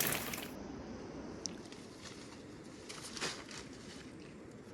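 Heavy rain hissing, cut off abruptly about half a second in. Then faint outdoor ambience with a couple of soft knocks.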